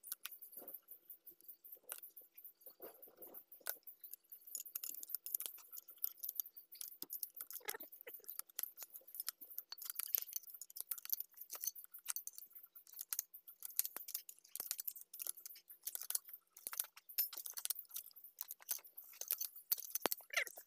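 Rapid, irregular metallic clicking and clinking of a ratchet and wrenches tightening the bolts of the pinion housing on a tractor's front-axle differential.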